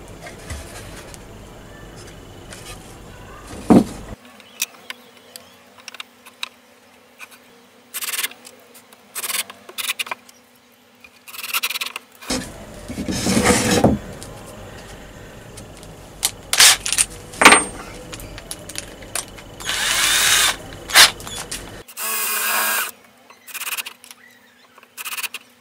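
Wooden planter panels and loose parts handled on a workbench: scattered sharp knocks and clicks of wood on wood and on the bench, and several short scraping or rattling noises of a second or two each.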